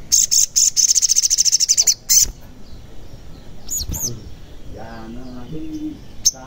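Olive-backed sunbird singing a loud, very high, rapid trill lasting about two seconds, followed a couple of seconds later by two short high chirps.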